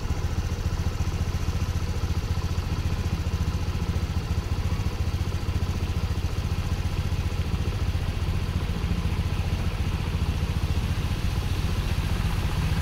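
A motor vehicle engine idling steadily close by, a constant low hum with a fine, even pulse.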